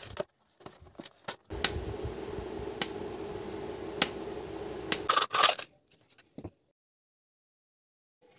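Hands handling a plastic jar and peeling its paper label, making crinkles, clicks and scrapes. A steady hum runs under a few sharp clicks for a few seconds in the middle. A burst of crinkling follows, then the sound cuts out to silence.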